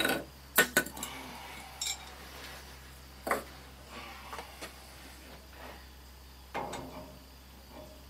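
Metal hand tools clinking and clanking as a pipe wrench is picked up and set to the cold-water fitting of a tankless water heater. There is a quick run of sharp metallic knocks in the first second, scattered single clinks after, and a short rattle near the end.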